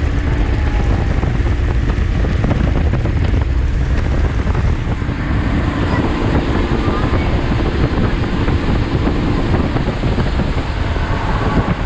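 Boat running on the water: a 1999 Evinrude FICHT 150 two-stroke outboard runs steadily under heavy wind buffeting on the microphone and water rushing past the hull. The outboard is running smoothly.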